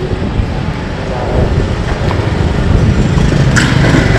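Street traffic with a motorcycle engine running close by, a low rumble that grows louder about a second and a half in.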